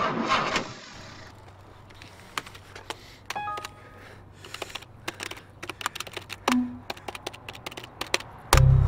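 Computer keyboard keys tapped in irregular clicks, with a short run of electronic beeps climbing in pitch about three and a half seconds in. Music cuts in near the end.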